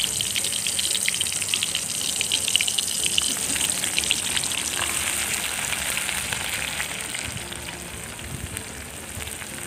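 Hot oil sizzling and crackling in a metal wok as chopped tomato, onion and chili are tipped in on top of frying banana-leaf caterpillars. The crackle is densest over the first few seconds and eases off toward the end.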